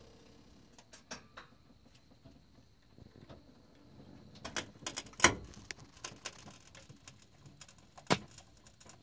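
Scattered sharp clicks and knocks, irregular and busier in the second half with the sharpest about five and eight seconds in, from the truck's cab settling as it is lowered onto new polyurethane body mounts.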